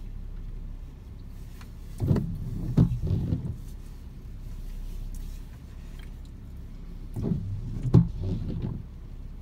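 Hurricane wind gusts buffeting the microphone over a steady low rumble, in two rough, rumbling bursts about two seconds and seven seconds in.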